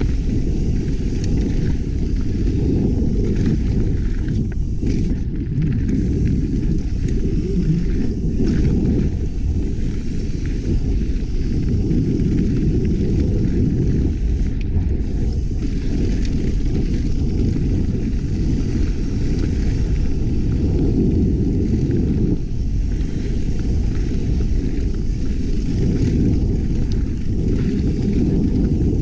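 Mountain bike riding downhill on a dirt trail: a steady, muffled rumble of wind and trail noise, as picked up by a GoPro in its housing.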